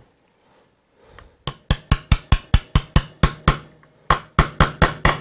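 Small hammer tapping a taper pin home through a helical gear and its shaft in a shaper's table elevation mechanism. The light taps come in two quick runs of about five a second, with a short pause between.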